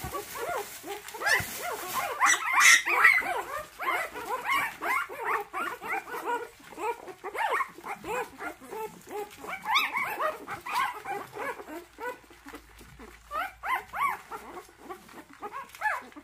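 A litter of young puppies whining and squeaking together, many short high cries overlapping without pause, with a louder flurry about two to three seconds in.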